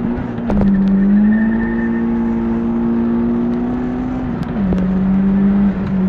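Turbocharged Nissan SR20DET four-cylinder running hard under full throttle at about 10 psi of boost, heard from inside the cabin. Its pitch drops sharply at two gear changes, about half a second in and about four and a half seconds in, with a few sharp clicks around the shifts, and it climbs slowly between them.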